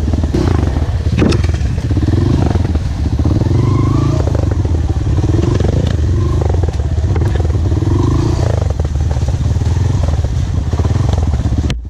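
Trail motorcycle engine running at low speed on a rough dirt track, its pitch rising and falling every second or two as the throttle is worked, with knocks and clatter from the bike over the bumpy ground. The sound cuts off abruptly just before the end.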